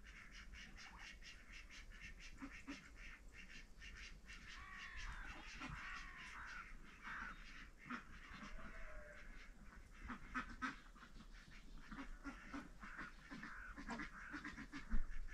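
Birds calling: many short chirps and calls overlapping, some with a falling curve, over a faint low rumble.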